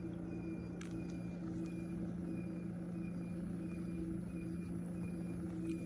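Single-serve coffee maker running with a steady mechanical hum from its brewing pump, pulsing about twice a second, with a couple of faint clicks.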